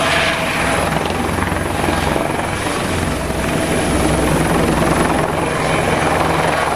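Eurocopter EC120 Colibri light helicopter, with a ducted Fenestron tail rotor, hovering low and turning, its rotor and engine running steadily with a thin high whine.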